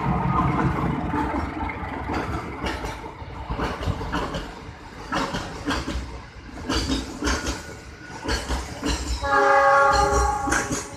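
Passenger train rolling past, its wheels clacking over the rail joints with a low rumble. About nine seconds in, the train's horn sounds once for about a second and a half, the loudest sound here.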